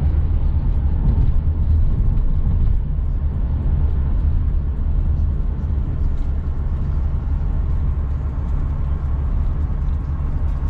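Road noise inside a car cruising at highway speed: a steady low rumble from the moving car.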